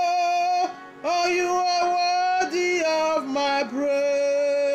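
A woman singing long held worship notes with vibrato, in three phrases separated by short breaths, the last notes stepping down in pitch.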